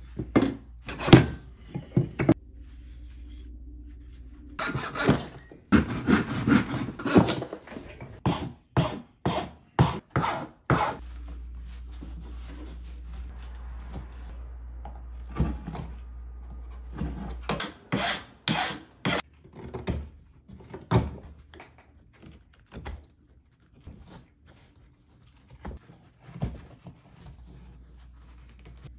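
Hand woodworking on a wooden spoon: a long series of short cutting and scraping strokes of carving knives in wood, in quick runs, with knocks of wooden blocks being handled.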